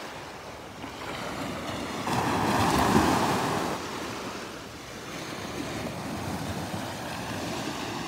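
Small Gulf of Mexico waves breaking and washing up a sandy shore at the water's edge, with one surge of surf loudest about two to three seconds in.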